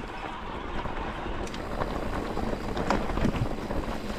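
Mountain bike rolling down a rocky trail: wind rushing over the microphone, with tyres crunching and the bike rattling over loose rocks in scattered sharp knocks.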